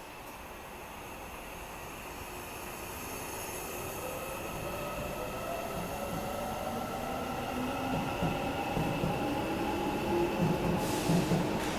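Korail Class 341000 electric multiple unit departing a station: its traction motors whine in several tones that rise in pitch as it accelerates, growing steadily louder. Regular low thumps from the wheels start in the second half.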